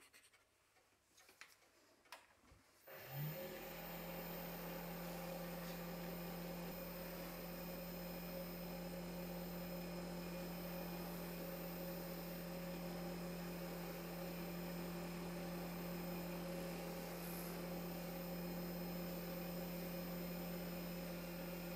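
Handheld rotary tool fitted with a polishing wheel spins up about three seconds in, then runs at a steady speed with an even hum while buffing a carved wooden figurine. A few faint clicks come before it starts.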